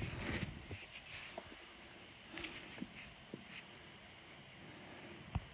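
Quiet outdoor ambience: faint insect chirping under scattered soft rustles and ticks, with one sharper knock near the end.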